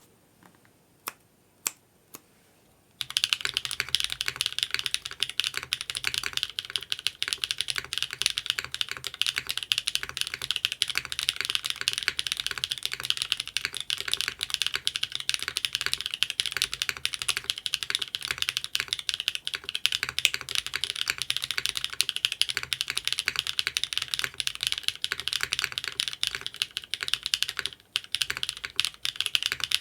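Typing on a Mode SixtyFive mechanical keyboard with Cherry MX Black housings on Kailh Burgundy linear stems, a PP plate and GMK keycaps. A few single keystrokes, then fast continuous typing from about three seconds in, with a brief pause near the end.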